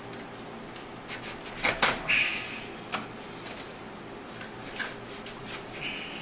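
Plastic radiator cooling-fan shroud knocking and scraping against the radiator and surrounding engine-bay parts as it is worked up and out by hand. The knocks are irregular, with a quick cluster and a short scrape about two seconds in.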